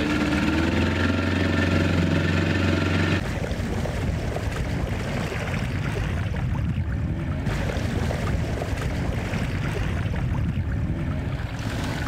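Lobster boat's engine running: a steady hum for about three seconds that stops abruptly, then a rougher, even rumble of engine and water noise.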